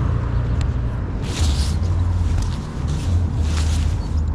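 Wind buffeting the microphone in a loud, unsteady low rumble, with two brief rustling hisses about a second and a half in and again around three and a half seconds.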